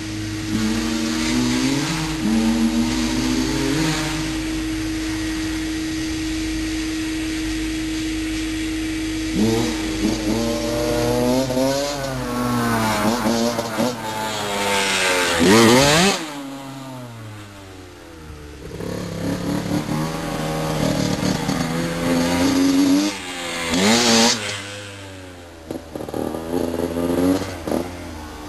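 Two-stroke Honda CR85R dirt bike engine: first holding a steady note, then revving up through the gears and passing close with a sharp drop in pitch about halfway through, and revving and passing again near the end.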